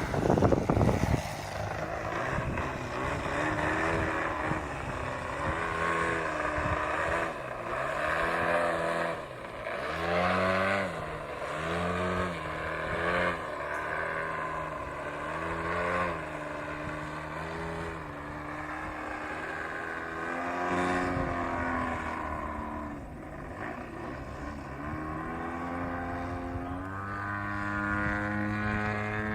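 DA70 twin-cylinder petrol engine of a large RC aerobatic plane in flight, its pitch rising and falling over and over as the throttle and the plane's passes change. A short rush of noise in the first second, and a rising pitch near the end.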